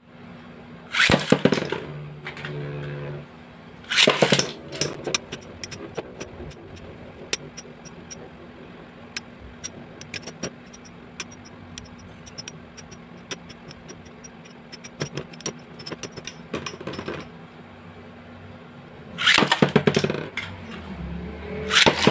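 Metal Fight Beyblade tops (Gravity Perseus and Rock Zurafa) launched into a Beyblade stadium, then spinning and clashing. Their metal wheels give many sharp clicks as they strike each other, with loud rattling bursts near the start and again near the end.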